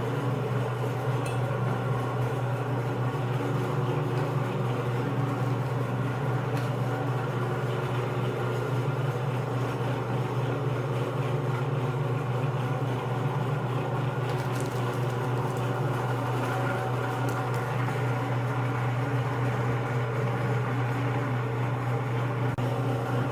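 Electric meat grinder running with a steady motor hum.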